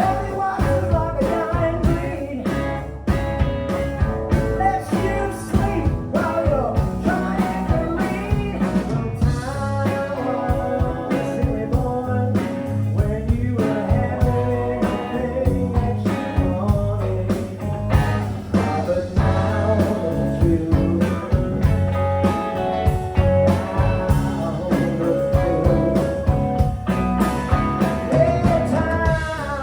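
A live blues-rock band playing a song with drums, bass and guitar, at a steady beat.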